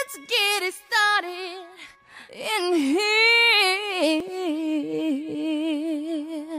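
Unaccompanied female voice singing a slow melody with heavy vibrato, in a few phrases with short breaks, as the vocal intro of a song soundtrack.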